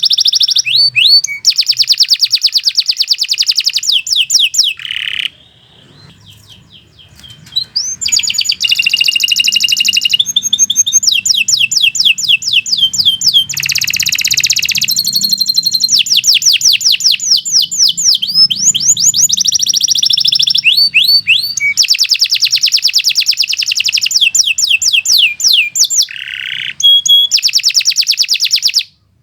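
A domestic canary singing a long, fast song of rapid trills and rolling repeated notes, mostly high-pitched. The song breaks off for about two seconds near the start, then carries on almost without pause.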